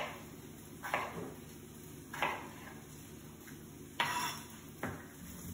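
Kitchen knife dicing a potato on a plastic chopping board: four separate knocks of the blade on the board, spaced irregularly.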